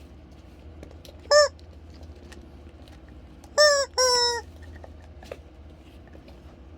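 Sound-making bird toy honking: one short honk, then about two seconds later two more in quick succession, the last one longer and dropping slightly in pitch.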